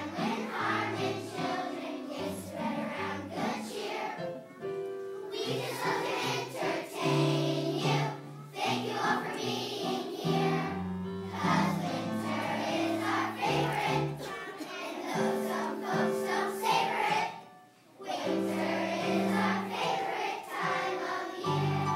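A children's choir singing with accompaniment. There is a brief pause near the end before the singing starts again.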